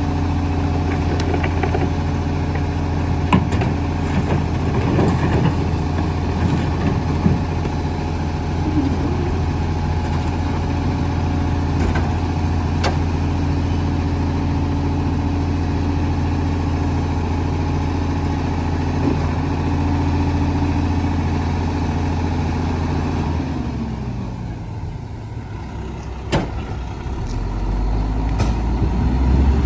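Rear-loading garbage truck's diesel engine running steadily while carts and leaf bags are tipped into the hopper, with a few metallic clanks. About three-quarters of the way through, the engine speed drops and the hum falls in pitch. Near the end a deep engine sound builds as the truck moves off.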